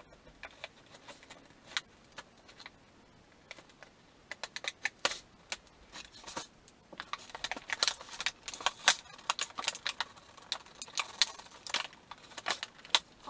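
Rigid plastic clamshell packaging being cut and pulled open by hand: irregular sharp crackles and clicks of stiff plastic, sparse at first, then busier and louder from about four seconds in.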